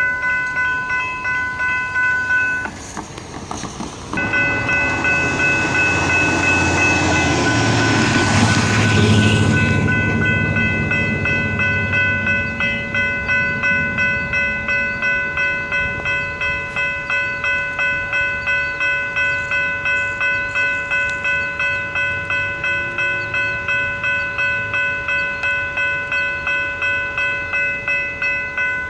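Electronic grade-crossing bell ringing in a steady ding, about two strikes a second, cutting out briefly about three seconds in. From about four seconds in, something passes with a rushing, rumbling sound that swells to a peak about nine seconds in and fades out by about twelve.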